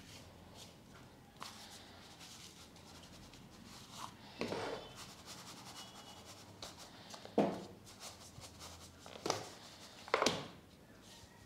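Desiccated coconut rubbing and sliding in a metal baking tray as it is spread and shaken level, with four sharp knocks of the tray against the wooden table, the first about four seconds in and the last near the end.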